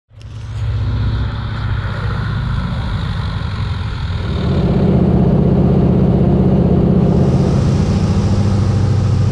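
Floatplane's radial piston engine and propeller running at high power, a steady drone that grows louder about four seconds in as the plane makes its takeoff run on the water.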